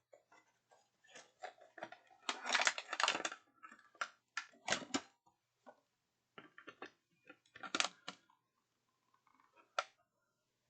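A small cardboard-and-plastic blind box being opened and its contents handled: irregular clicks, crinkles and rustling, with a dense burst of rustling about two to three seconds in and sharp snaps near the middle and end.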